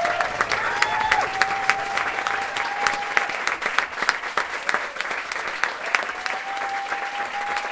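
Audience clapping in dense, irregular applause, with a long, steady high call held above it twice.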